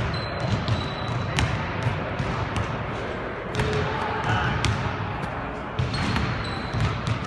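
Basketballs bouncing on a hardwood gym floor: irregular knocks over the steady noise of a busy practice gym, with a couple of brief high squeaks.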